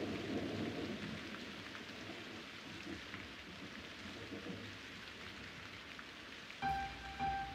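Steady rain, with the last of a low thunder rumble dying away over the first second. Near the end, a few sustained musical notes begin over the rain.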